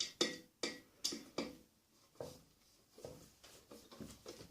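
Hand tool working a screw into the table saw's metal fence-mounting hardware: a run of sharp clicks with a short ring, about two a second at first, then fainter and sparser, as the screw refuses to go in.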